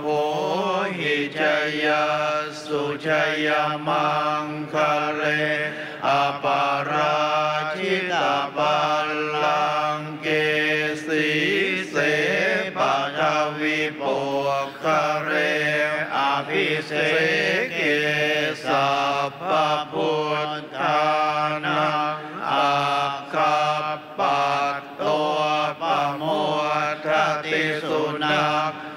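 Many Buddhist monks chanting a Pali text in unison on one steady low pitch, the syllables pulsing evenly.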